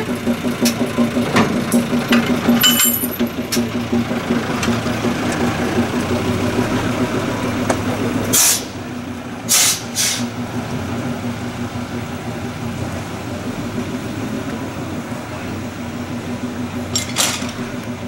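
Small forest-railway diesel locomotive and train running slowly, heard from an open passenger car: a steady engine drone with light clicking from the wheels on the track. Short bursts of hiss break in about halfway through, twice more soon after, and once near the end.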